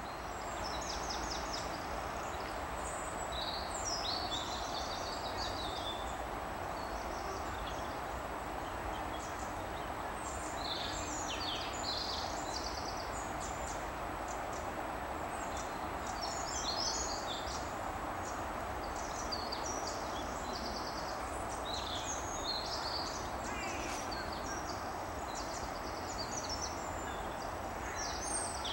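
Small songbirds giving short, high-pitched calls again and again, some in quick rattling runs, over a steady outdoor background noise.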